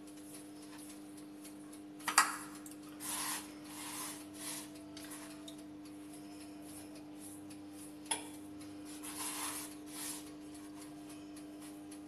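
Bare hands rubbing a spice rub into a raw pork knuckle on a wooden cutting board: short scraping, swishing rubs. There is a sharp knock about two seconds in, the loudest sound, and a smaller one about eight seconds in. A steady electrical hum runs underneath.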